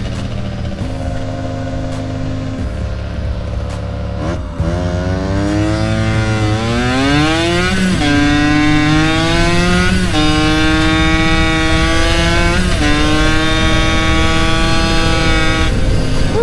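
Yamaha YSR mini bike's small two-stroke single-cylinder engine running low for a few seconds, then accelerating through the gears: the note climbs in pitch and drops back at each of three upshifts. The rider half suspects the shifts sound like a slipping clutch.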